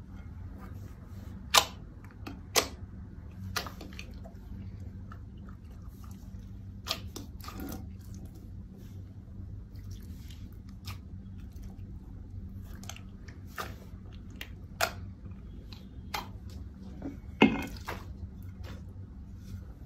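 Slime being squeezed and kneaded by hand in a glass bowl: soft squishing with scattered sharp clicks and pops, over a low steady hum. About two seconds before the end, a louder knock as the glass bowl is handled.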